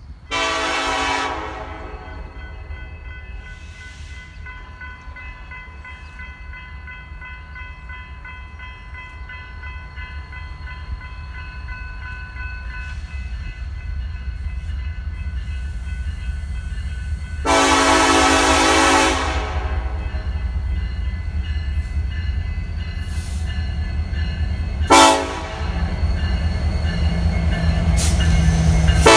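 Air horn of a Norfolk Southern diesel freight locomotive sounding as the train approaches: a long blast just after the start, another long one a little past halfway, then a short toot, with a further blast beginning at the very end. Underneath, the low diesel engine and rail noise grows steadily louder as the locomotives come up and pass close by.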